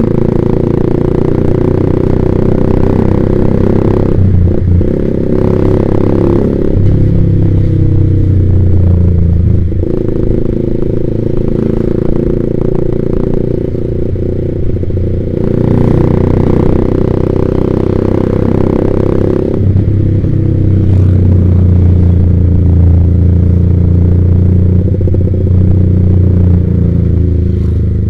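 Yamaha Vixion's single-cylinder engine running through a Proliner TR1 R aftermarket exhaust while the bike is ridden. The engine note changes several times as the throttle is opened and eased off.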